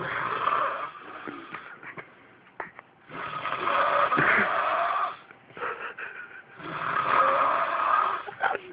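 A sleeping person snoring loudly: three long snores roughly three seconds apart, with quieter breaths and small clicks between them.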